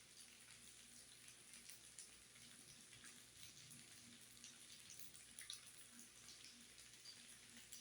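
Faint sizzling of food frying on a hot griddle, with a light hiss and scattered small crackles and pops.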